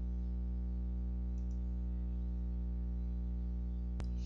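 Steady electrical hum on the recording, with a single sharp computer-mouse click about four seconds in as the Model button is clicked.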